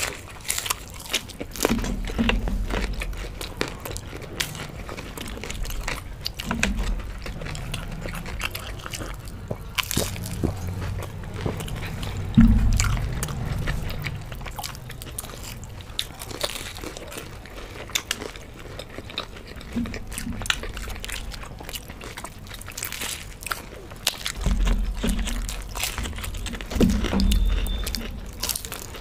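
Close-miked eating sounds of crisp fried samosas being bitten and chewed: crunching pastry, chewing and many small mouth clicks, with a few dull low bumps, the loudest about twelve seconds in.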